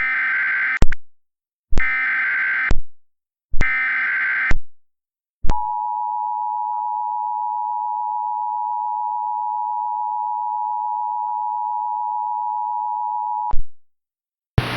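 Emergency Alert System tones: three bursts of digital SAME header data, about a second each, then the two-tone EAS attention signal, a steady dual tone held for about eight seconds that cuts off near the end.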